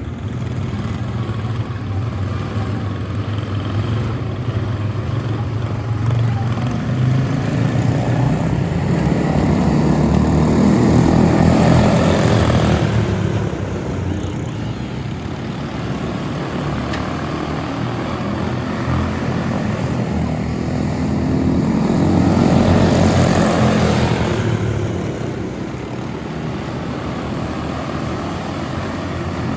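Propeller aircraft engine running as the plane flies past twice, the sound swelling and dropping in pitch as it passes, about 11 and 23 seconds in, then fading.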